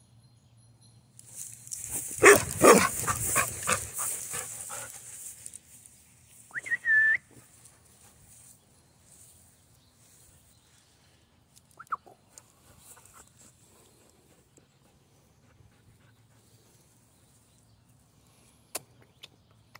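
Carolina dog barking in a quick, loud run of barks for a few seconds, then one short high-pitched note that slides down and holds briefly.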